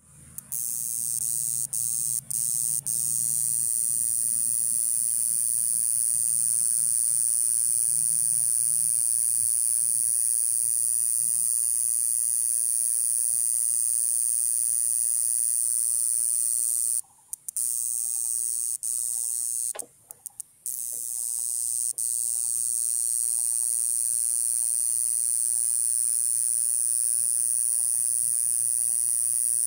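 Grass cicada (Mogannia hebes) singing: a continuous high-pitched buzz with a few momentary breaks in the first seconds and two short pauses a little past halfway.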